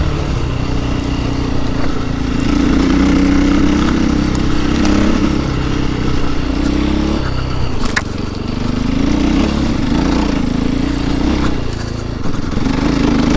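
Enduro motorcycle engine running through a ride on a dirt trail, its revs rising and falling with the throttle, with wind and trail noise. A single sharp knock comes about eight seconds in.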